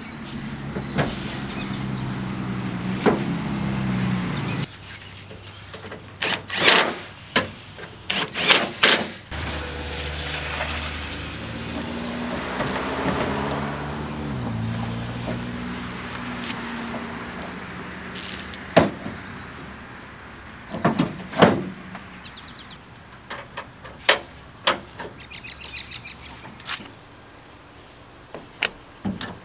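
Sharp clicks and knocks of plastic and metal parts as a pickup's tail light and tailgate are fitted, in clusters. Two stretches of steady low vehicle hum come and go between them.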